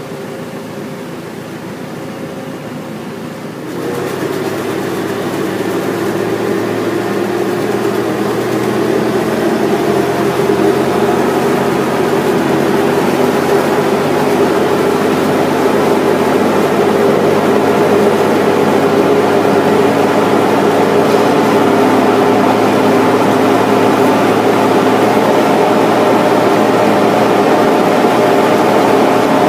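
Telehandler's diesel engine running to drive a hydraulic slurry mixer. It steps up in loudness about four seconds in, builds over the next several seconds, then holds a steady pitch.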